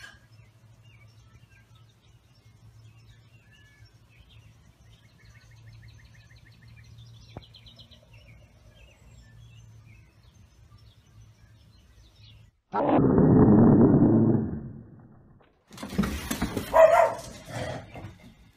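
Faint birds chirping outside over a low steady hum. About 13 seconds in, a loud rough noise lasts around two and a half seconds, followed near the end by a cluster of sharper scuffling noises.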